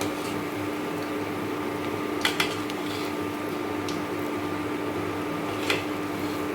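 Mysore bondas deep-frying in hot oil, a steady sizzle under a constant hum from a fan. Three sharp clicks: two close together about two seconds in, one near the end.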